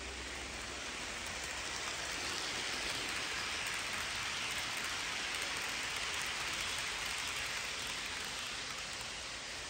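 HO scale model train running past on the track: a steady hissing rattle of wheels on rail and the locomotive's motor. It swells as the train passes close and eases off near the end.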